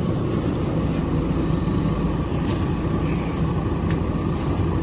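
Steady low rumble of a bus's engine and road noise heard from inside the cabin, with two faint clicks in the second half.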